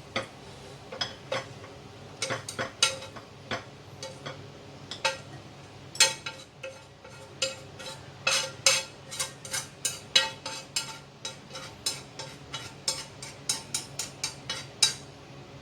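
Metal utensil clinking against a pan and plate as fried duck pieces are lifted out, dozens of sharp irregular clinks with a short ring, thickest in the middle.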